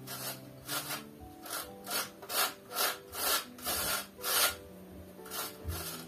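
Cheese being grated on a metal box grater: a run of short rasping scrapes, about two or three strokes a second, loudest in the middle. The cheese is not fully thawed, so it crumbles as it is grated.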